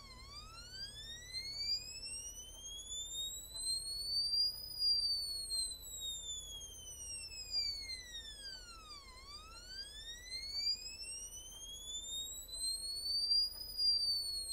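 Small speaker driven by a two-stage 2N3904 BJT amplifier, playing a sine test tone swept up and down in pitch. It rises smoothly for about four and a half seconds, falls back over the same time, then rises again and turns downward near the end.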